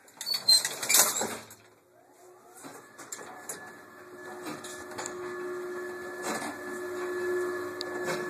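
Metallic clanks from the elevator's collapsible brass cage gate, then the vintage Otis electric traction elevator's drive starting up about two seconds in: a whine that rises in pitch, then settles into a steady hum as the car runs.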